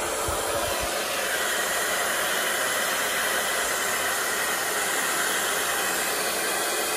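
Hand-held hair dryer running steadily, blowing hot air onto a row of wax crayons to melt them. There are a few low thumps in the first second, after which the hiss holds even.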